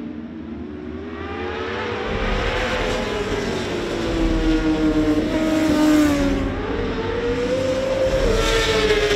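Superbike engines at high revs passing by a trackside microphone. The sound builds, and the pitch slides down as a bike goes by around the middle, which is the loudest moment. Near the end the pitch rises and falls again as more bikes pass.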